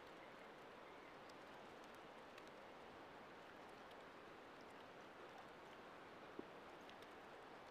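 Near silence: a faint, steady hiss of room tone, with a few faint clicks, one a little more distinct about six seconds in.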